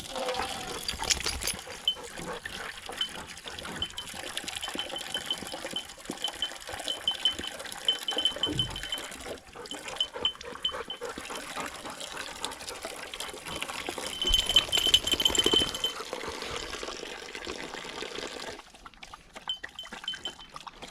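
A dog drinking water, lapping and splashing, busiest about two-thirds of the way through.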